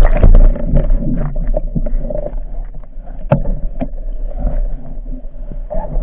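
Loud water noise close to the microphone, a low rumble and rushing with scattered knocks and scrapes.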